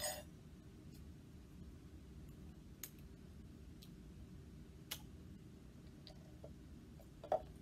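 A few faint, sparse clicks and one light knock near the end as a soda bottle is handled and its screw cap twisted off over a plastic cup. No fizz or pouring is heard.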